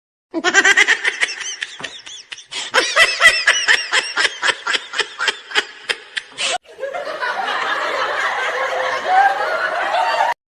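Laughter in rapid, repeated pulses for about six seconds, cut off abruptly, then a denser, steadier wash of sound that runs on to the end.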